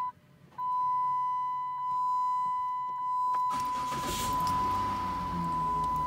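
Steady, high electronic warning tone from the 2010 Dodge Grand Caravan's dashboard chime with the ignition switched on, breaking off briefly at the start. From about halfway through, a rumbling, rustling noise joins it.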